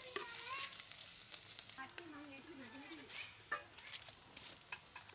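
Dried Bombay duck (bombili) fish sizzling as it fries in oil in a clay pot, stirred with a wooden spoon that scrapes against the pot in short strokes. A faint wavering call sounds in the background about two seconds in.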